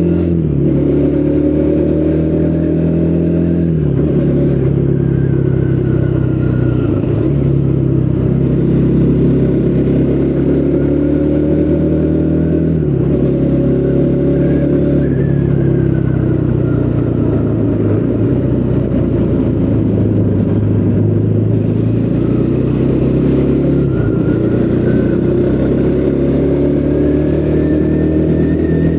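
Triumph Speed 400's 398 cc single-cylinder engine through its original exhaust, pulling under way. It rises in pitch and drops back several times as it shifts up through the gears.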